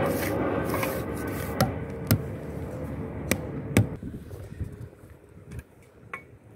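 Hand tools knocking on a granite kerb stone bedded in wet mortar while mortar is worked with a trowel. There are about four sharp taps in the first four seconds, then fainter scattered ones, over a soft scraping that fades away.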